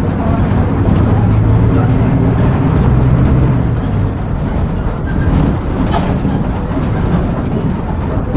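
Volksbus/MAN 17-230 OD city bus running under way: its diesel engine hums, working harder for a few seconds before easing off about four seconds in, with clattering rattles throughout.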